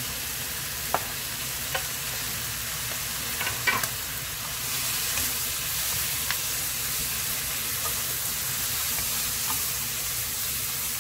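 Squid and vegetables stir-frying in a wok over high heat: a steady sizzle that gets a little stronger about halfway through, with a few short scrapes and knocks of a wooden spatula stirring the food.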